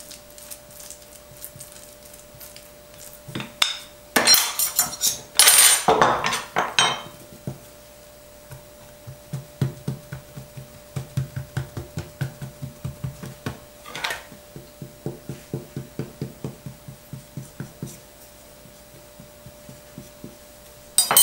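A metal spoon scraping and clinking as meat filling is spooned onto a dough round. This is followed by a long run of soft, dull dabs, about three a second, as fingers press the folded dough's edges shut. A faint steady hum runs underneath.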